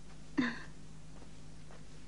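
Faint steady hum of an old film soundtrack, with one short vocal sound from a person, falling in pitch, about half a second in.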